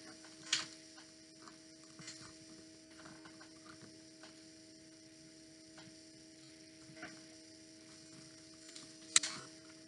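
Steady electrical hum with faint rustles and a few light clicks as paper book pieces are handled. The sharpest click comes near the end.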